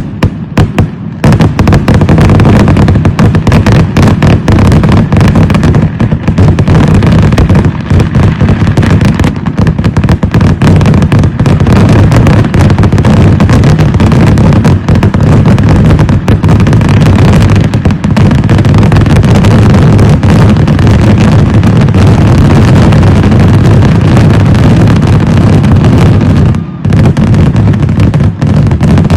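A fireworks barrage: many shells bursting in quick succession, so densely that they merge into one continuous, very loud rumble of blasts. There is a brief lull about 27 seconds in.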